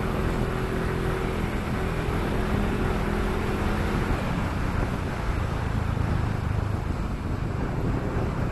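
A motor scooter being ridden: its engine runs steadily under heavy wind noise on the microphone. A steady hum in the first half gives way to mostly wind rumble.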